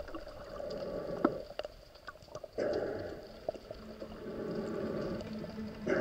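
Muffled underwater water noise picked up by a submerged camera, uneven, with a few sharp clicks.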